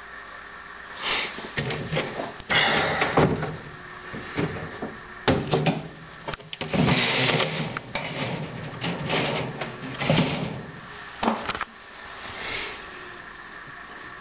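A string of irregular knocks, rubs and scrapes, loudest in the middle, handling noise from the camera and a hand moving about at the enclosure.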